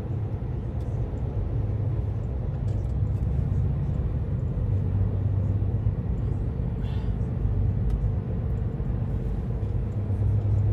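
Steady low drone of a heavy goods vehicle's engine and road rumble, heard inside the cab while the lorry drives along a motorway.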